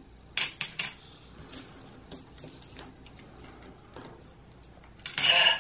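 Coins clicking and clinking as they are stacked one by one onto the plastic plate of a No Face coin bank and picked up off a tabletop, with three sharp clicks about half a second in and lighter taps after. A brief voice-like sound near the end.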